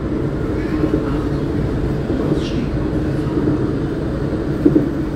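Stationary NGT8D low-floor tram humming steadily, a low even drone, with a faint high chirp about halfway through.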